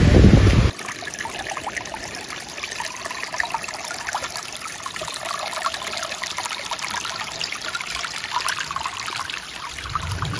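Shallow stream trickling over stones, a steady water sound that starts less than a second in, after a brief loud low rumble.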